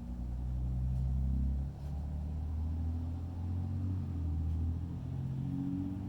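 Low, steady engine rumble with a pitched hum whose tone shifts a few times, stepping down about two seconds in.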